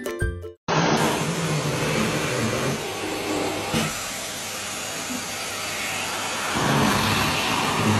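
Vacuum cleaner running with its brush nozzle drawn over a long-haired cat's fur, a steady hiss and hum that grows a little louder about six and a half seconds in. It starts just after a snatch of music cuts off.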